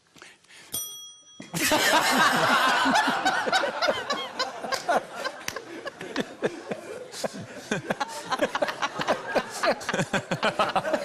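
A desk bell rings once about a second in: a short, clear metallic ring. Then the studio audience breaks into laughter that goes on, with bursts of chuckling.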